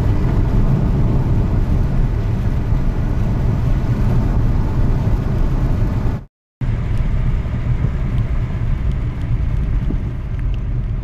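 Steady road and engine noise inside the cabin of a vehicle cruising at about 80 km/h, mostly a low rumble. It drops out completely for a split second about six seconds in, then resumes unchanged.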